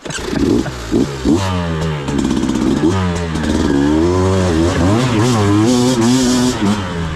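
Beta 200RR two-stroke dirt bike engine revving up and down, the pitch rising and falling repeatedly, as it is ridden through a fast-flowing creek.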